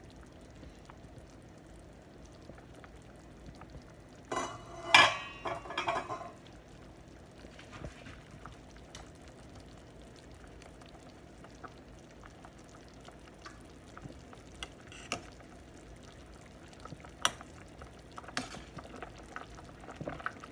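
Stainless steel stockpot of beef and papaya soup simmering, with metal clattering against the pot about four to six seconds in, a few sharp clinks later, and a spoon stirring in the broth near the end.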